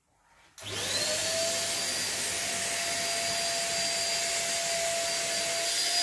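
Deerma DX700 corded stick vacuum cleaner switched on about half a second in: the motor spins up with a quick rising whine, then runs steadily with a rushing hiss and a steady whine as it vacuums a mattress.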